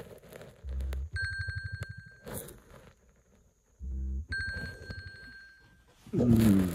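Phone alarm ringtone: bursts of a high, rapidly pulsing tone repeating about every three seconds, with short low buzzes between them. A louder rush of noise comes near the end.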